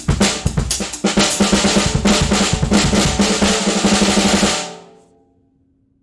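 Handmade solid-wood stave snare drum played with sticks in a drum kit: a few hits, then a fast, even roll with the shell ringing at one steady pitch, ending just before the five-second mark and dying away.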